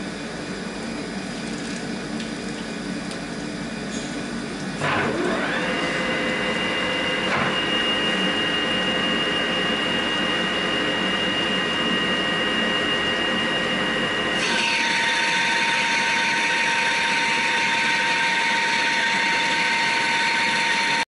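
Metal-turning lathe spinning up about five seconds in, its pitch rising and then settling into a steady running whine. About two-thirds of the way through, a louder steady hiss joins.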